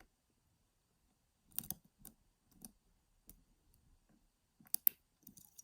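Steel underwire pick clicking and scraping against the pins inside a Carl F Euro cylinder lock during picking: scattered small clicks, with louder double clicks about one and a half seconds in and near the end.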